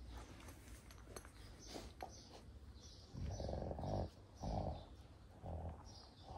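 Young Kangal shepherd dogs play-fighting, growling in three short low bouts in the second half.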